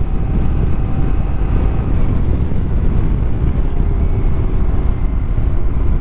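Riding noise on a moving 1994 Honda ST1100 motorcycle: a steady low rumble of wind rushing over the microphone, with the bike's V4 engine running underneath at a steady cruise.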